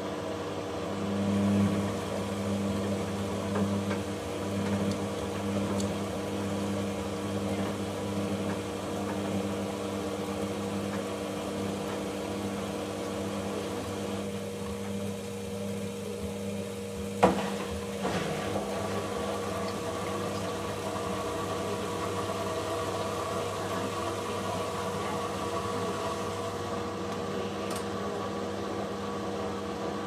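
Logik L612WM13 front-loading washing machine on its Eco Wash programme, the drum motor humming steadily as the drum tumbles the laundry, with a few louder swells in the first seconds. A little past halfway the motor eases off, a sharp click sounds, and the hum starts again with a changed pitch, the pause and click typical of the drum changing direction mid-wash.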